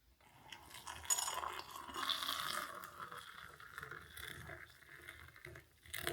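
Kitchenware being handled, with a bright ringing clink about a second in, more clicks and clatter, and another sharp clink near the end.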